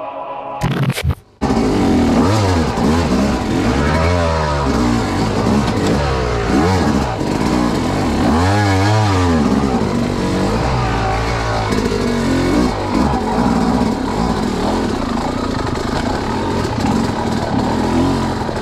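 Dirt bike engine running and revving up and down over and over as the bike is ridden and worked over a rough trail. It starts about a second in.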